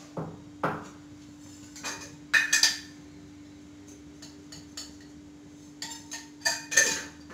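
Steel kitchen containers and utensils clinking and knocking as they are handled, in several short clatters, the loudest a little over two seconds in and again near the end. A steady low hum runs underneath.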